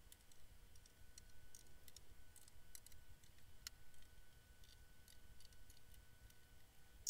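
Faint, irregular small clicks of a screwdriver and screws as perimeter screws are started into the case of a PreSonus StudioLive 24.4.2 mixer, only loosely, not yet tightened.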